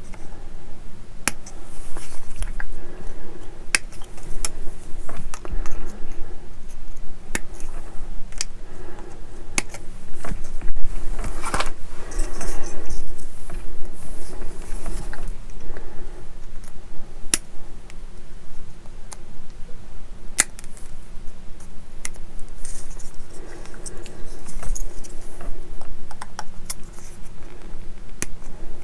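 Plastic model-kit parts being snipped off the sprue with cutters and handled: scattered sharp clicks and the light rattle of plastic pieces.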